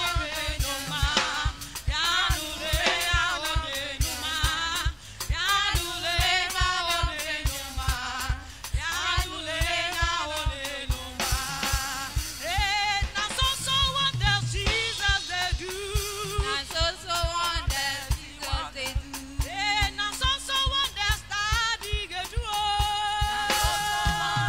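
Live church praise music: women singing into microphones, a lead voice with backing singers, over a drum kit keeping a steady beat.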